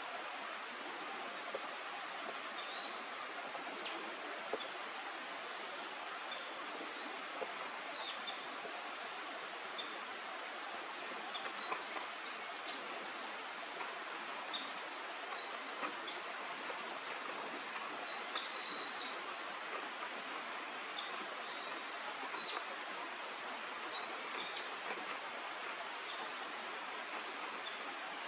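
Insects chirring steadily at a high pitch. A high call that rises and falls repeats about every four seconds, loudest near the end.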